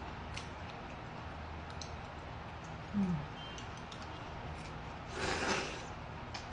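Close-up eating sounds: faint wet mouth clicks and chopstick taps, a short low hum about three seconds in, and a slurp of noodles a little after five seconds in, the loudest sound.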